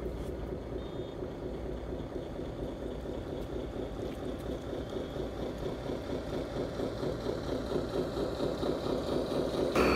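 Engine idling sound of 1/14-scale RC trucks and an RC wheel loader: a steady, finely pulsing diesel-style idle that grows slowly louder. Just before the end it jumps abruptly to a louder sound.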